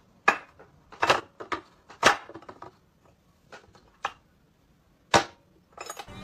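A hand tapping and knocking on a hard tabletop: scattered, sharp taps at uneven intervals, the loudest about a third of a second in, about two seconds in and about five seconds in.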